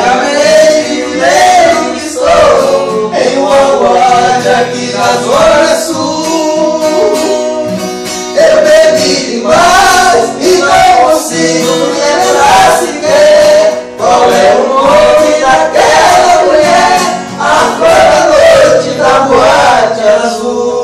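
Male voices singing a sertanejo song over acoustic guitar, the melody rising and falling in long sung phrases.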